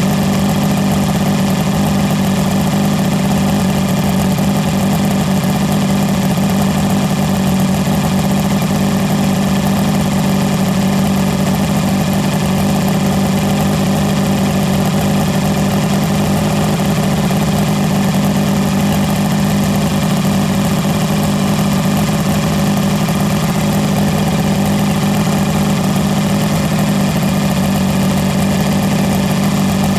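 1976 Mercury inline-six two-stroke outboard idling steadily.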